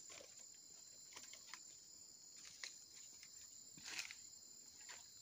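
A faint, steady, high-pitched chorus of insects, with a few soft ticks scattered through it.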